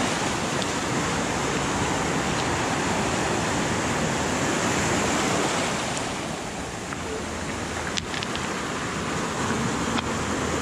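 Rough sea surf breaking and washing over a stony shore: a steady rush of water that eases a little about six seconds in, with a few faint clicks around eight seconds.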